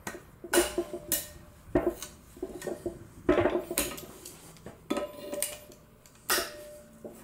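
Metal clanking of locking pliers (vice grips) against an exhaust manifold while a seized manifold stud is worked: a string of sharp, irregularly spaced metallic clanks with short ringing, the pliers not biting well on the stud.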